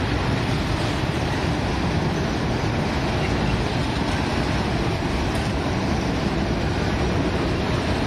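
A passing train giving a steady rumbling noise.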